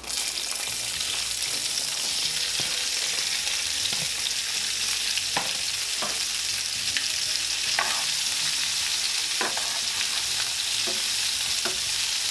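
Sliced onions, green bell peppers and mushrooms sizzling in hot vegetable oil in a skillet, the sizzle starting at once as they drop into the pan and then holding steady, with occasional short clicks.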